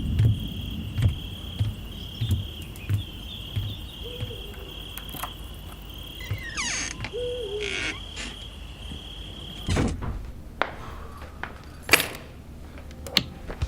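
Added night-time sound effects: crickets trilling steadily, an owl hooting twice, and footsteps about every half second early on. About ten seconds in, a heavy thunk, and the crickets stop at once. A sharp click comes near the end.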